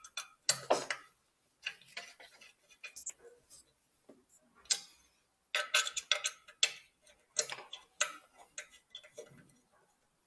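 Screws being tightened into a microscope's metal body with a hex key: a run of irregular small metal clicks and knocks, with a few louder ones in the middle.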